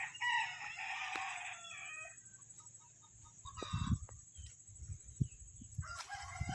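A rooster crowing: one long crow of about two seconds at the start, then shorter calls about halfway through and near the end. A few soft low thumps come in between.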